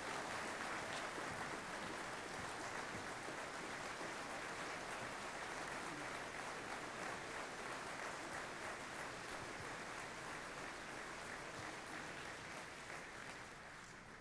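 Audience applauding steadily, then slowly dying away near the end.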